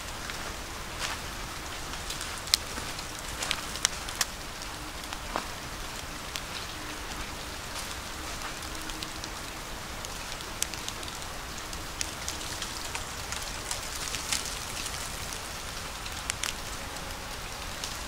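Light, steady patter of falling precipitation in a snow-covered forest, with scattered sharp ticks.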